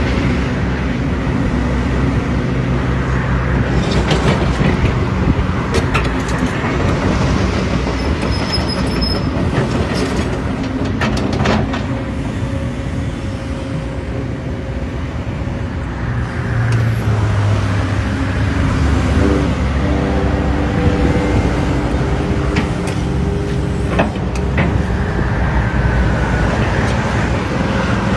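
Diesel engine of a construction digger running and revving up under load several times, with a few sharp metallic clanks from the working machine.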